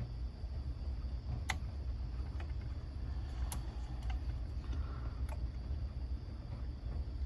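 A few separate light clicks and taps of small tools and hardware being handled during RC car drive-shaft assembly, over a steady low rumble.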